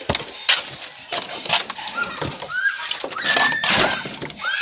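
Sharp taps and scrapes of a steel plastering trowel working cement mortar onto a concrete beam's underside. Several short, high animal calls that rise and then hold sound over it about two and three seconds in, and these are the loudest part.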